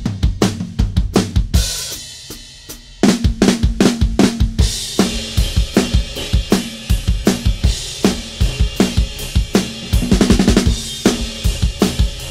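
Troyan custom drum kit with Masterwork Custom cymbals played in a steady beat of kick drum, snare and cymbals. About two seconds in, the beat stops and a cymbal rings on alone for about a second before the groove comes back in. About ten seconds in there is a fast fill of closely packed strokes on the drums.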